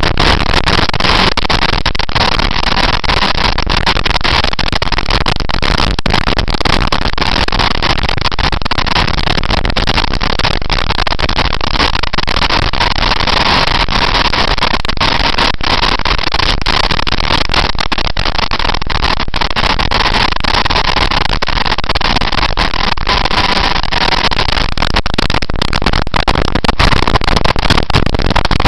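Motorcycle ridden at speed, with steady wind rush over the onboard microphone and engine noise underneath. A faint steady whine runs through most of it.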